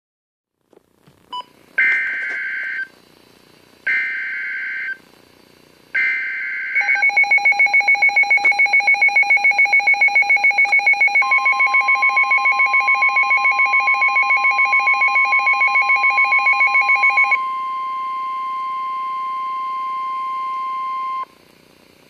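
NOAA Weather Radio Emergency Alert System alert for a Special Marine Warning: three short screeching bursts of the digital SAME header, then the weather radio's rapid pulsing alert beep, about five pulses a second. About eleven seconds in, the steady National Weather Service warning alarm tone joins, outlasts the beeping and cuts off suddenly about a second before the end.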